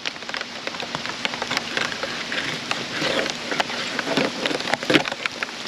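Rain falling steadily: a constant hiss dotted with many sharp drop ticks.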